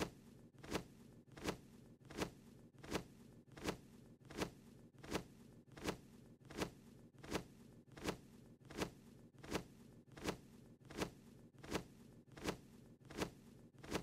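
Cartoon bird's wings flapping: short, quick whooshes repeating evenly, about one every three-quarters of a second, over a faint steady low hum.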